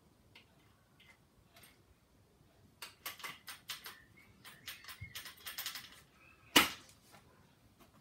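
Small clicks and light rattles of plastic and metal parts being handled on an RC truck's chassis, with one sharper click about six and a half seconds in.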